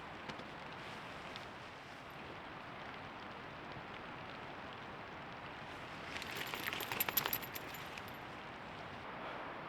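Steady light rain and dripping in the woods, with a brief cluster of light metallic clinks about six seconds in, lasting about two seconds.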